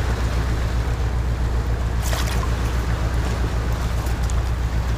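Strong wind buffeting the microphone as a steady low rumble, with the sea washing over rocks as a hiss behind it. There is a brief scratchy rustle about two seconds in.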